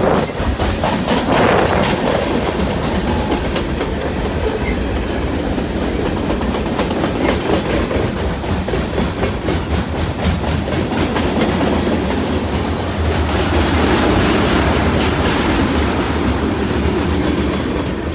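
CN freight train's cars rolling past, steel wheels clacking on the rails in a steady run of clicks.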